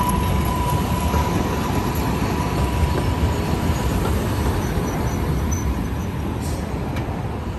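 MBTA Green Line light-rail train rolling past on its tracks with a steady low rumble. A thin, steady high whine is heard over the first couple of seconds, then fades.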